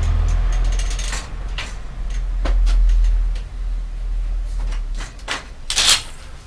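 Scattered metal clicks and clinks of hand work on a bicycle's rear wheel over a low rumble that fades out about five seconds in, then a louder clatter just before the end as the bike is lifted off the repair stand.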